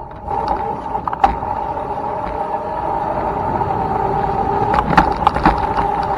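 Electric dirt bike's motor whining steadily as it rides over rough ground, with tyre and wind rumble beneath and a few sharp knocks from the bike over the bumps, the loudest about five seconds in.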